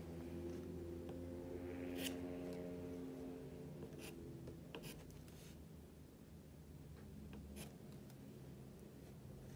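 Pencil writing on paper: faint scratching strokes with a few sharp ticks as the tip is set down and lifted.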